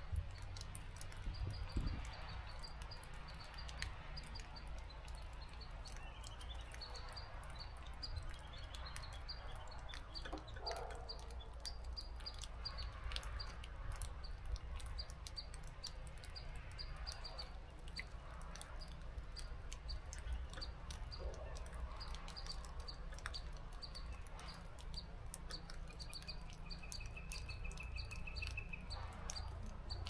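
Small forest birds calling: a steady run of short high chirps, a few a second, with a brief fast trill near the end, over a low steady rumble.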